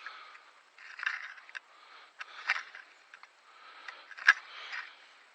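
Hand digging in damp garden soil for potatoes: irregular scraping of a digging tool through earth, with a few sharp knocks, the loudest about four seconds in.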